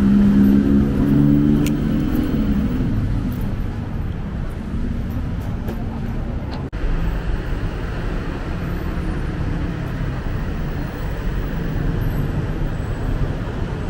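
City road traffic: cars and taxis passing and running in the street, with an engine hum standing out in the first couple of seconds, then a steady traffic rumble. There is a brief break about halfway through.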